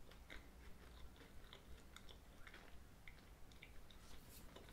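Faint chewing of a dry, crumbly pastry tart: scattered small soft clicks from the mouth, with a short hiss near the end.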